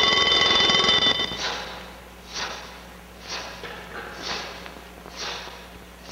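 Twin-bell mechanical alarm clock ringing, stopping abruptly about a second in, then ticking loudly about once a second.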